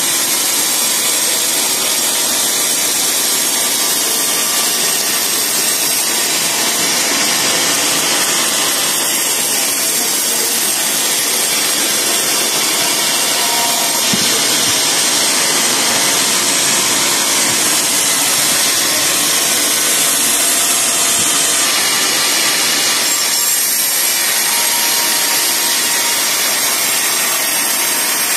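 Sawmill band saw running steadily through a teak log, a loud, continuous sawing noise with no break.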